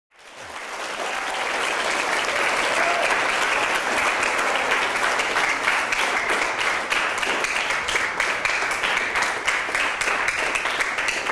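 A large audience of middle-school students applauding steadily. The applause swells up from silence over the first two seconds or so.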